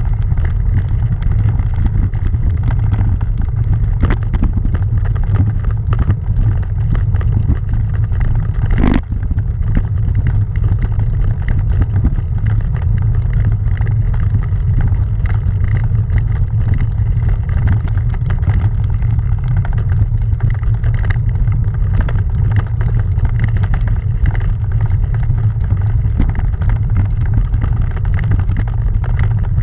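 Bicycle and handlebar-mounted camera rumbling and rattling continuously over cobblestones, a steady low drone full of fine ticks, with one sharper knock about nine seconds in.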